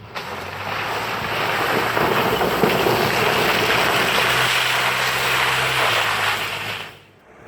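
Off-road 4x4's engine pulling steadily under load while the vehicle ploughs through mud and water, with loud spraying and splashing over the engine note. It fades out suddenly near the end.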